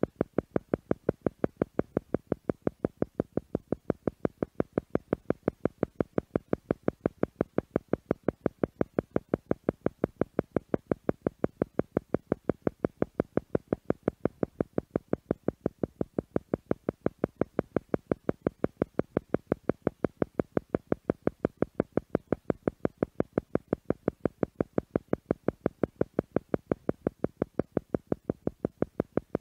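Theta meditation sound: an electronic tone pulsing on and off at an even rate of several pulses a second, without change.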